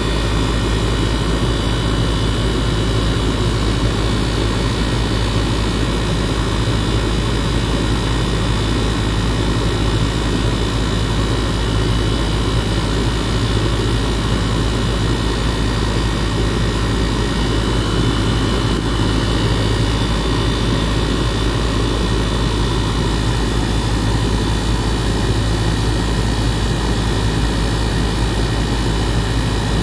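2018 Goodman 2.5-ton gas pack running in cooling mode, heard close to its compressor: a steady, loud hum with the condenser fan's rush, unchanging throughout.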